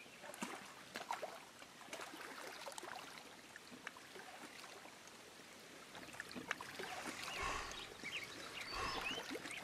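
Faint outdoor water ambience: water splashing and trickling with scattered small clicks, and short high chirps in the last couple of seconds.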